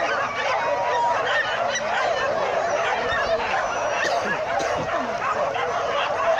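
A large pack of leashed dogs barking, yelping and whining all at once: a dense, continuous din of overlapping excited calls.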